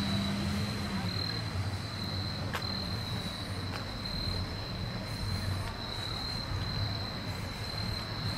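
Crickets trilling in a steady, high-pitched chorus over a low background rumble.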